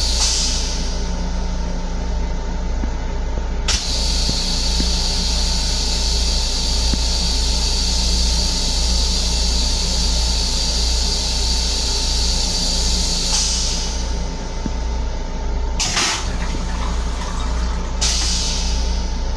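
Flush cycle of the stainless-steel toilet in an LIRR M7 railcar restroom over the car's steady low rumble. A click about four seconds in starts a steady hiss lasting about ten seconds. Near the end the bowl empties with a short rush, followed by a second clunk.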